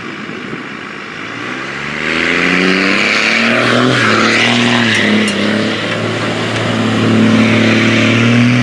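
Car engine revving up and running hard, its pitch climbing about two seconds in, then holding with small dips and rises, with a steady rushing hiss over it.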